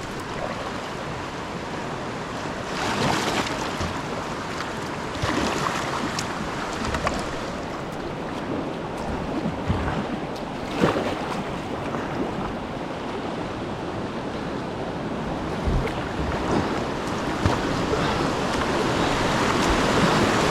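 Whitewater rushing past a kayak as it runs a big rapid, with splashes and short surges of spray, and wind buffeting the microphone. The water noise grows louder toward the end.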